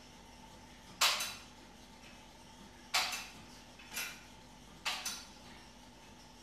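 A series of sharp clacks, about one every second or two, the fourth doubled, over a faint steady hum.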